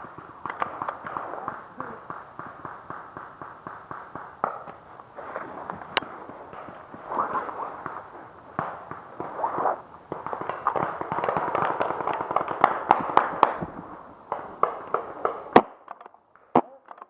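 Paintball markers firing in rapid volleys of pops, many shots a second, with a few louder single sharp cracks near the end.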